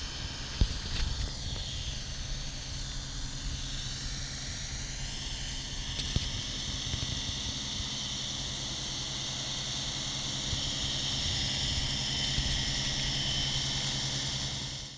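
A ZAUGG RR 10000 rail snowblower's engine runs steadily as the machine travels along the track. It gives a low, constant rumble with a high whine above it, and sharp clicks come about half a second in and again about six seconds in.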